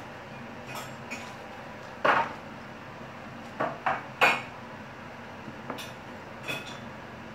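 Glass kitchenware clinking and knocking on a countertop: about eight short, separate knocks, the loudest about two and four seconds in, as a small glass bowl and a glass baking dish are handled.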